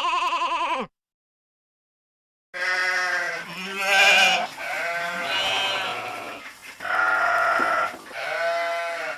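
Sheep bleating: one wavering bleat ends about a second in, then after a short silence several bleats of different pitches follow one another and overlap until the end.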